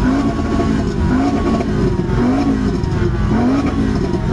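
A SEAT Toledo's engine revved through its exhaust in short repeated blips, about once a second, each rising and falling in pitch, four in all.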